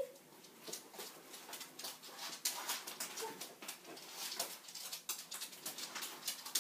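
A dog's claws clicking and tapping on a laminate floor as it moves about, with a brief faint whine about three seconds in.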